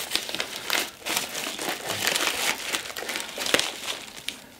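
White plastic mailer bag crinkling and rustling as it is cut open with scissors and handled, with many small clicks and one sharper click about three and a half seconds in.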